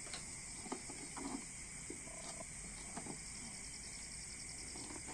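Crickets trilling in a steady, evenly pulsing chirr, with a few faint light knocks and scuffs.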